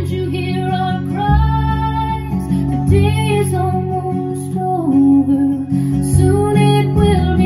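Acoustic guitar music with a melody line that bends and glides between notes, played back through JBL 4344 loudspeakers driven by a Sansui AU-D907F amplifier.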